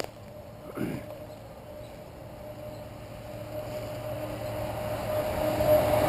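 An engine running with a steady drone, growing steadily louder as it draws near. A short falling squeak about a second in.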